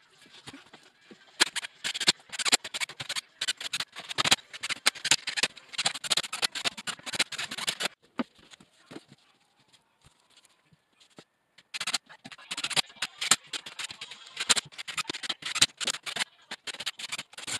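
Scraping, scratching and knocking of a half-inch gypsum wallboard sheet being handled and pushed into place against the wall, in dense runs of rapid scratches with a pause of a few seconds in the middle.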